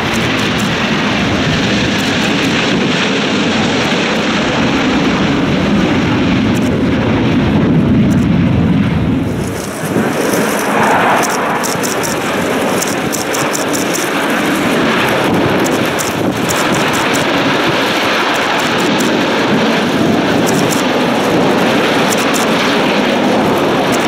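Jet engine noise from a formation of six Chengdu J-10 fighters flying past, a steady loud rumble that swells about eight seconds in, dips briefly, then carries on.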